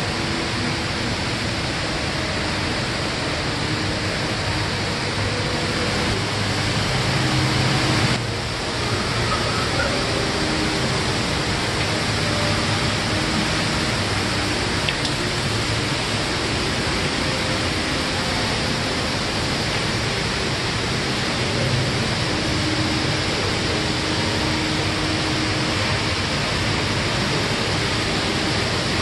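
The Rain Vortex indoor waterfall, a column of water pouring from an opening in a glass roof into a round basin, making a steady, continuous rushing noise.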